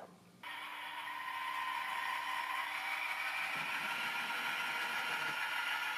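Piko Hobby H0 model locomotive running on the layout track: a steady electric-motor whir with wheel-on-rail rattle, starting about half a second in and growing a little louder over the next second.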